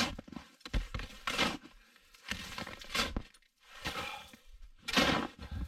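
Small shovel digging into packed snow, with crunching scoops and scrapes about once a second.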